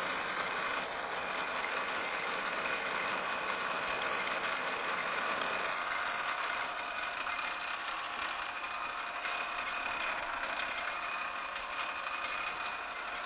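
Metal lathe running steadily with a quarter-inch starter drill in the tailstock chuck cutting into the spinning workpiece: an even machine hum with a constant high whine and the hiss of the cut.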